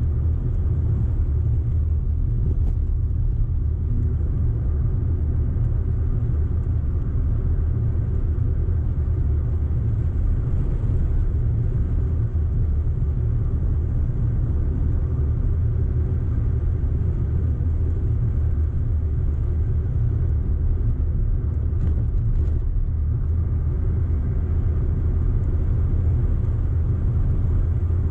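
Audi car driving along, its engine and tyres making a steady low rumble.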